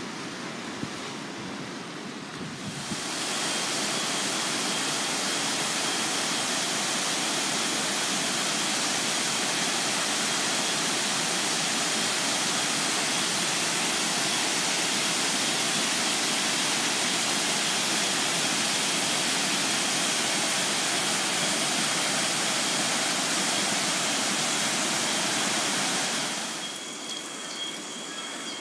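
Steady rush of water pouring over a small man-made dam in several cascades. For the first few seconds the sound is quieter surf washing over rocks. Near the end it drops to the softer splashing of a small natural waterfall trickling down a rock face.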